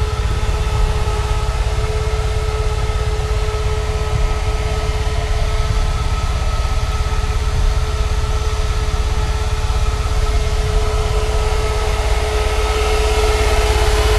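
Car engine idling steadily, a constant low rumble with a steady whine over it.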